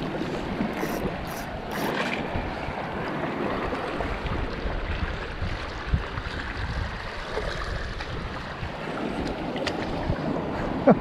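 Shallow seawater rushing and lapping among rocks, with wind rumbling on the microphone.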